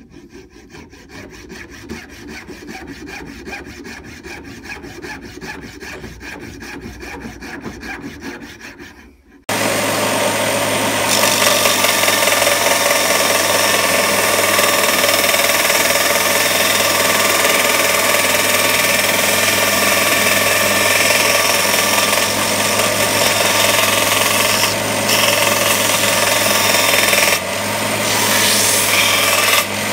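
A hand coping saw cuts through a clamped wooden knife-handle block with quick, even strokes. About nine and a half seconds in, a Parkside bench belt sander takes over, running loud and steady while the handle is ground against the belt.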